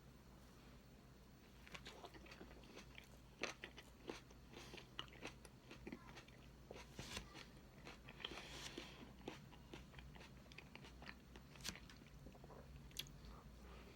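A person eating cake close to the microphone: wet chewing and mouth sounds with many small sharp smacks and clicks. These start about a second and a half in and come irregularly.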